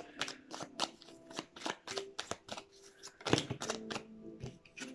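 A deck of divination cards being shuffled overhand by hand: a quick, irregular run of short card slaps and flicks.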